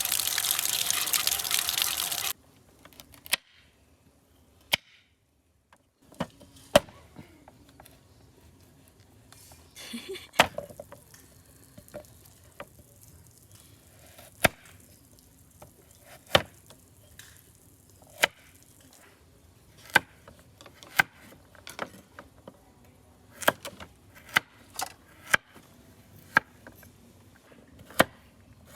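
Water running from a tap, shut off about two seconds in. Then a knife chops on a cutting board in single sharp knocks, one every second or two at an uneven pace.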